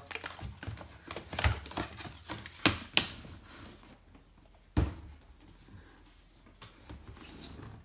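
Handling noise from camera gear and cardboard packaging being moved and set down on a wooden floor: a run of short clicks and knocks over the first three seconds, then one louder thump about five seconds in, with quieter rustling after.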